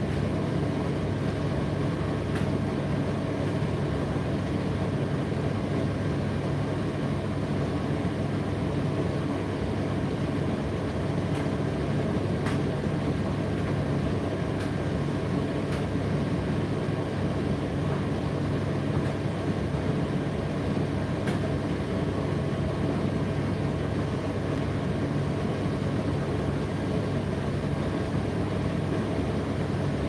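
Indesit IDC8T3 condenser tumble dryer running with a steady low hum and whir, with a few faint ticks now and then.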